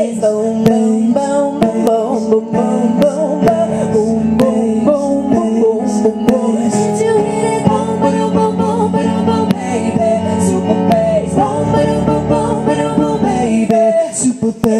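A woman singing a pop song into a microphone over electric keyboard accompaniment with a steady beat.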